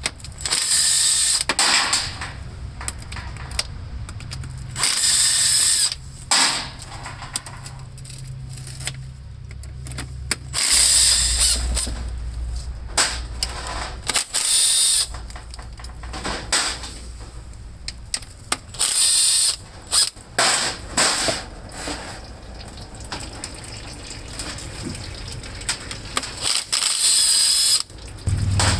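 Power tool running in short repeated bursts, spinning out the bolts of the 4T65 automatic transmission's oil pan so that the pan can drain.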